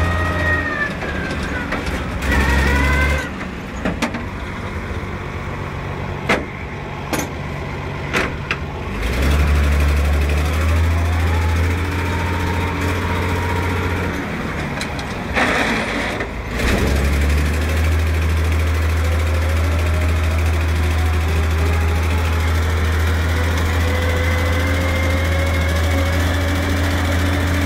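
Chamberlain 354 tractor heard from its cab while driving across a paddock: a loud, steady low engine drone that eases off twice, with a faint whine that rises in pitch near the end. A few sharp clicks come about a third of the way in.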